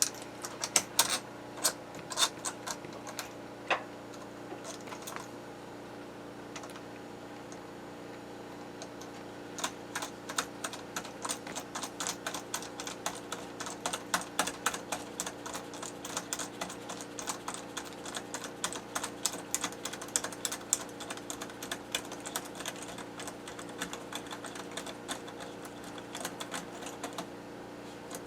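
Light metallic clicks and taps from hand assembly of a bench chainsaw chain sharpener, with hardware such as a washer being handled and fitted: scattered clicks at first, then long runs of rapid clicking from about ten seconds in, over a steady low hum.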